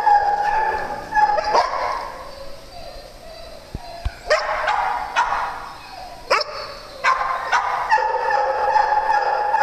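Dogs at play: a long, drawn-out, high whine at the start and again from about 8 seconds in, with about five short, sharp barks in between.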